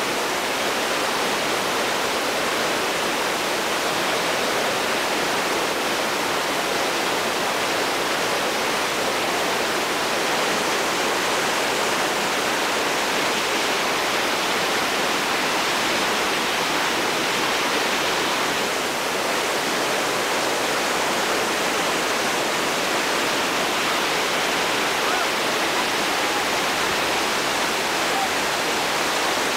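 Whitewater of Railroad Rapid on the New River rushing steadily.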